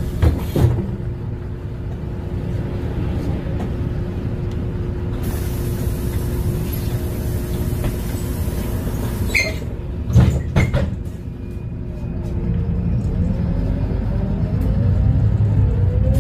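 Inside a LiAZ 5292.22-01 city bus on the move: its MAN E0836 LOH01 engine, running on compressed natural gas, and its drivetrain give a steady low rumble with a steady whine. There are a couple of knocks near the start and about ten seconds in, and a rising whine near the end as the bus picks up speed.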